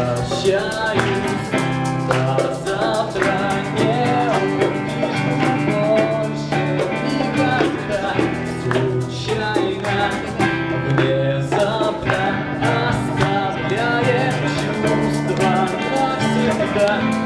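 Music: a song with guitar accompaniment and a moving melody line, playing steadily.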